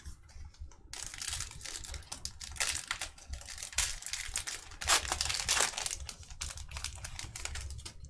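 Foil trading-card pack wrapper crinkling as it is handled and torn open, a dense crackle starting about a second in.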